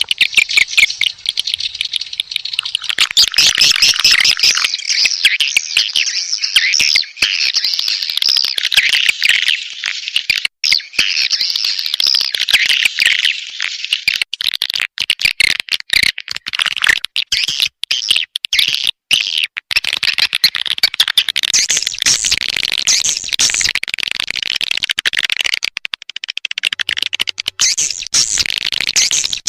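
Swiftlet lure-call recording: a dense, unbroken stream of rapid swiftlet twittering and chirps. It is a combined call and mating-call track of the kind played to draw swiftlets into a nesting house.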